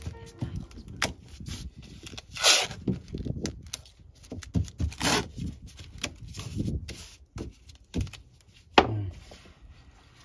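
Blue painter's tape pulled off the roll, torn and rubbed down onto fiberglass, in a run of irregular ripping and rubbing strokes, with a sharper knock near the end.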